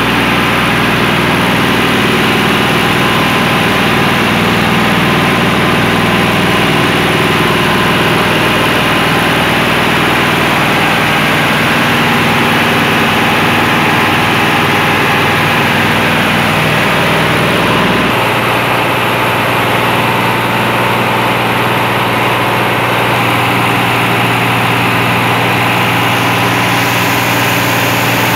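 New engine running loud and steady under load on a dynamometer, during its break-in run at about 80% load. The deepest rumble thins out about 18 seconds in.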